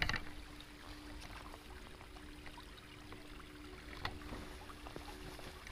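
Small stream running over and between stones, a faint steady trickle, with a couple of light knocks about four and five seconds in.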